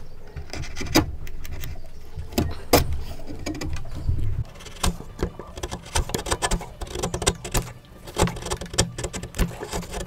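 Wood chisel pushed by hand through wood, paring off shavings: a series of crisp cutting and crackling sounds, with a few sharp knocks in the first seconds and a denser run of short cracks and scrapes in the second half.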